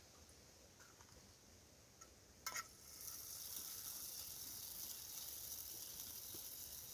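A single knock about two and a half seconds in, then a faint, steady sizzling hiss from the small wood fire burning under the pot.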